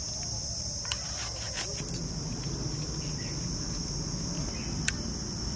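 Insects chirring steadily in a high band, with a few soft clicks from hands scraping spice paste off a stone grinding slab.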